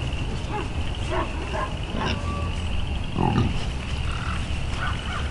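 Outdoor ambience of a steady, pulsing trill chorus typical of frogs over a low steady rumble, with scattered short calls and one louder, lower call a little after three seconds in.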